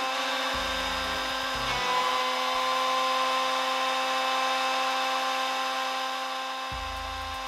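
Electric heat gun running steadily, its fan motor whining over a rush of air, shrinking self-sealing heat-shrink tubing onto a crimped wire ferrule. The whine rises slightly in pitch about two seconds in.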